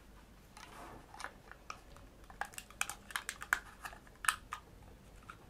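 Faint, irregular clicks and rattles of a small plastic buggy being handled while elastic bands are wrapped around it to hold the battery box and controller board in place.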